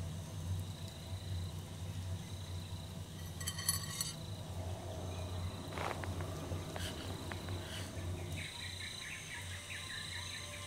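Night ambience of insects chirping over a low steady hum, with a brief buzzing trill about three and a half seconds in and a run of quick chirps near the end.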